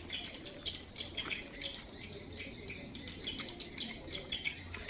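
Birds chirping: many short, high chirps in quick succession, overlapping one another.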